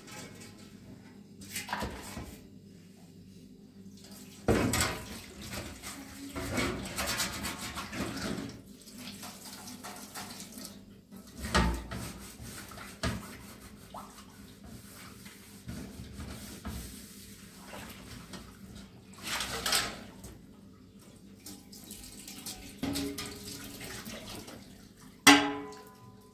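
Kitchen tap running and splashing as a large metal tray is rinsed in the sink, with several sharp clanks of the tray, the loudest near the end.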